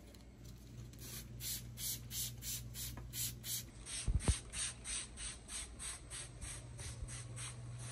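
Hand trigger spray bottle squirted rapidly and repeatedly, about three to four short hissing sprays a second, misting scent-control spray onto camouflage hunting clothes. One low thump about four seconds in.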